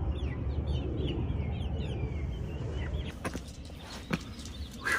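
Backyard chickens calling, a run of short chirping notes over a low rumble. About three seconds in this gives way to a quieter stretch with a few faint knocks, the last and loudest just before the end.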